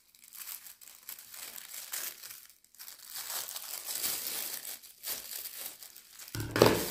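Thin plastic carrier bag crinkling and rustling as it is handled and snipped with scissors, with a louder rustle near the end as the bag is lifted open.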